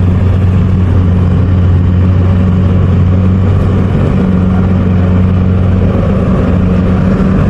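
Rice combine harvester's engine running loud and steady, a constant low hum with no change in speed.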